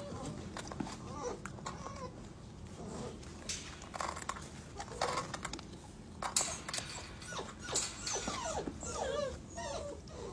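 Several puppies whimpering with short, squeaky, wavering cries, mixed with scuffling and scratching as they clamber over each other in a plastic tub.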